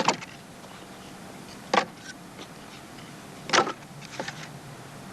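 Chunks of wood knocking against each other as they are set and packed into a stacked wood pile: three loud clunks a little under two seconds apart, with a few lighter taps between.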